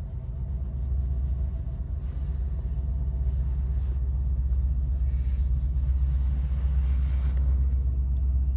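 Steady, deep vehicle rumble that swells slightly after about a second and then holds even.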